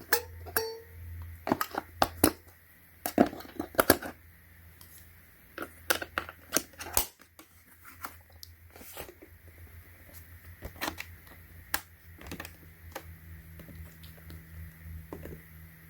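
AA batteries being put into a wireless keyboard's battery compartment and the keyboard handled: a quick run of sharp clicks and knocks, then sparser, softer clicks from about seven seconds in.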